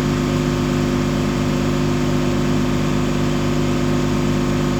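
Ship's engine machinery running steadily, a constant hum with a fast, even low pulsing.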